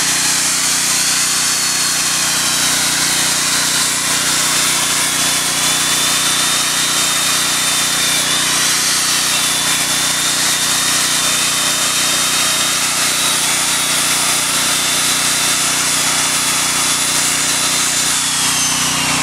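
Electric angle grinder with a wire cup brush running steadily against the hardened steel face of a blacksmith's anvil, scouring off slag left from quenching. Its high whine dips briefly partway through and falls in pitch near the end.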